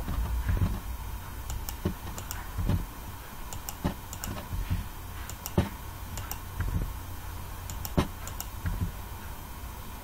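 Computer keyboard keys and mouse buttons clicking at an irregular pace, single clicks with the odd quick pair, over a low steady hum.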